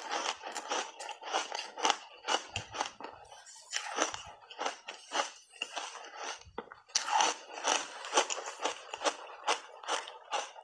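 Crunchy reshaped foam ice, heavily coated in matcha powder, being chewed in big mouthfuls: a fast, uneven run of loud crunches with brief lulls about three seconds in and again past the middle.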